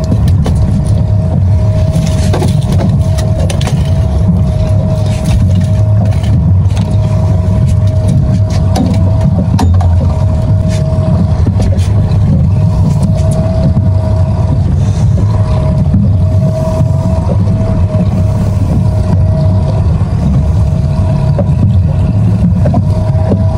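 Boat's outboard motor running steadily: a constant low rumble with a steady whine over it, with scattered brief clicks and knocks.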